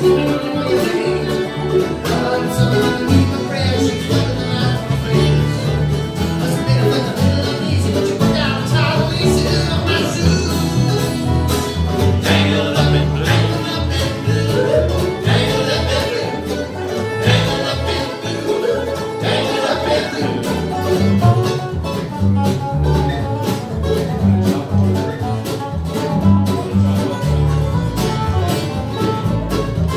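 Live bluegrass band playing an up-tempo tune on fiddle, mandolin, acoustic guitar, resonator guitar and upright bass, with the bass keeping a steady beat.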